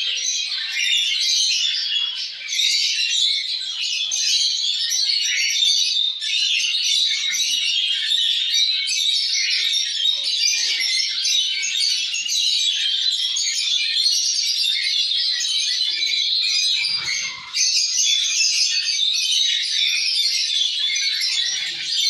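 A flock of caged budgerigars and lovebirds chirping and chattering without a break, many high calls overlapping.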